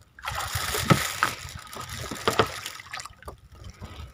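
Sea water splashing and sloshing against a small fishing boat, with a few sharp knocks. It dies down about three seconds in.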